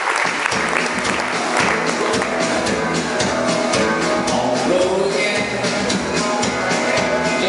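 Country music with a steady beat and singing, with applause in the first couple of seconds.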